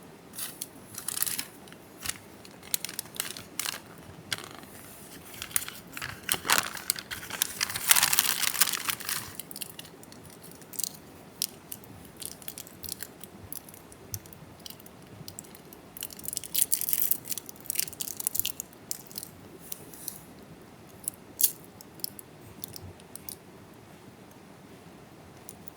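Close-up crinkling, rustling and sharp clicks in irregular bursts, with longer crinkly stretches about six to nine seconds in and again around sixteen to eighteen seconds.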